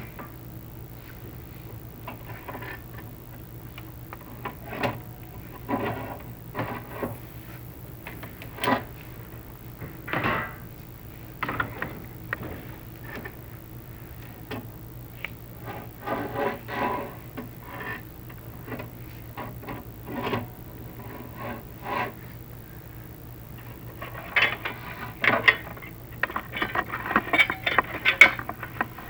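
Chimney inspection camera scraping and knocking against the clay flue tiles as it is lowered down the flue, in irregular short scrapes that come thicker and louder near the end, over a steady low hum.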